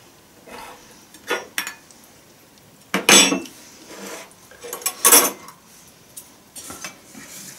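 Spoons clinking against stainless steel bowls and plates as people eat: several separate clinks, the loudest about three seconds in.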